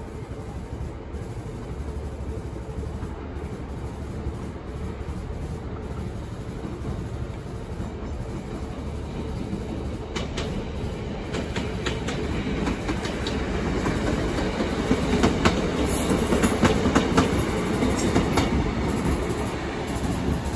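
Northern Class 150 Sprinter diesel multiple unit running past at low speed: a steady diesel rumble that grows louder from about halfway through, with its wheels clicking over rail joints and pointwork. It is loudest near the end as it goes by close.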